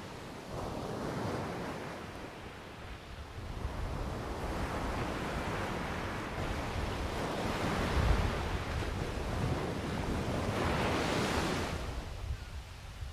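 Ocean surf washing in waves, swelling to its loudest a little past halfway and easing off near the end, with low wind rumble on the microphone.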